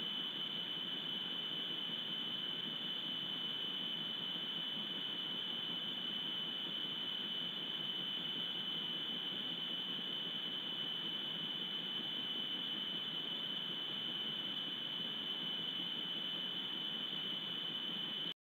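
Steady high-pitched electronic whine over a constant hiss from a wildlife webcam's audio feed, with no animal sounds; it cuts off suddenly near the end.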